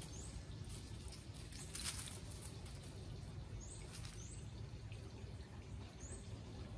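Faint outdoor garden ambience: a steady low rumble with a few short, high chirps scattered through it, and a brief rustle in dry leaf litter about two seconds in.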